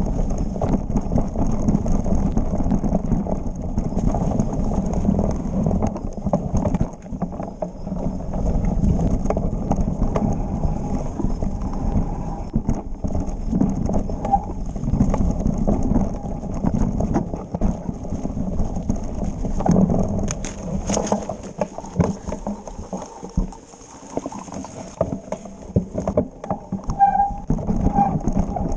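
Mountain bike descending a rough forest singletrack: continuous clatter and rattle of the bike and tyres over roots, rocks and leaf litter, with the rear freewheel ticking as it coasts. The clatter eases briefly about three quarters of the way through.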